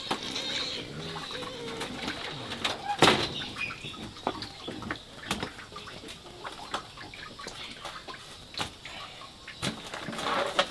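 Scattered sharp clicks and knocks, the loudest about three seconds in, with birds calling in the background.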